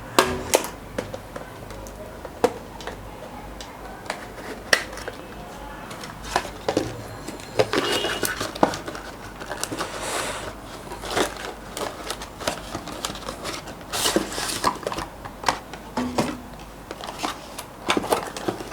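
Clicks, taps and rustling as a CPU retail box and its packaging are handled and opened. There are two longer rustles about ten and fourteen seconds in.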